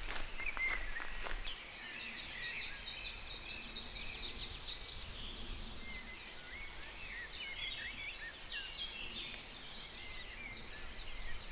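Songbirds singing in a dense chorus of short chirps and trills. In the first second and a half there are footsteps on the forest path, which stop abruptly.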